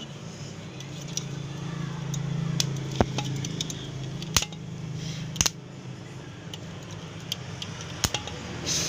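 Steady low electrical hum of a homemade welding machine, with several sharp metallic clicks and taps as metal parts are handled.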